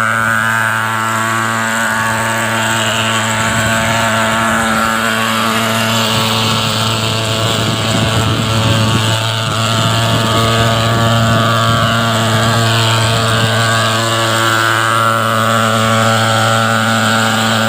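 Portable pulse-jet thermal fogging machine running with a loud, steady buzzing drone, rougher for a few seconds midway.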